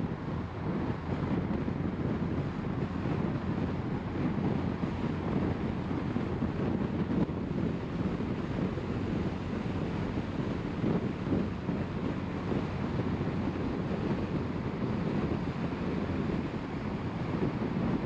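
Steady low rumble of car road and wind noise while driving, even throughout with no distinct events.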